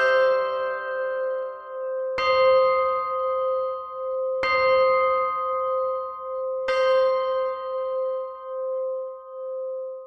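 A Big Ben-style clock-tower bell striking the hour: four strikes of the same bell about two seconds apart. Each strike rings on into the next, and the last dies away slowly.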